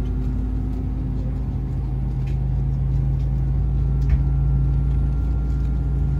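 Steady low drone inside an Airbus A319 cabin beside the wing, from the jet engines at idle and the cabin air system during pushback or the start of taxi. The hum grows slightly stronger about halfway, and there is a faint knock about four seconds in.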